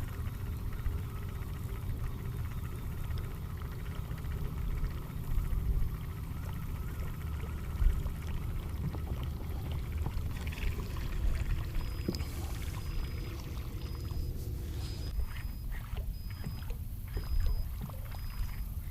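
Water lapping against a bass boat's hull over a steady low rumble, with scattered small knocks. From about twelve seconds in, a faint high beep repeats about once a second.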